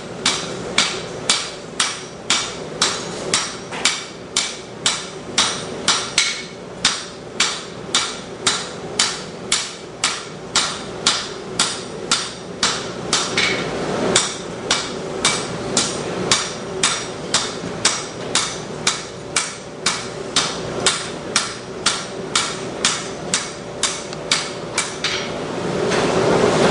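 Steady, even hand-hammer blows on steel at an anvil, about two a second, each ringing brightly: forging work. The blows stop near the end, and a louder steady rushing noise rises.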